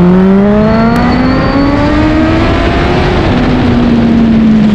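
Suzuki Hayabusa's inline-four engine pulling hard, its pitch climbing steadily, then dropping about three seconds in and easing lower. Heavy wind rush over the rider's helmet-mounted microphone.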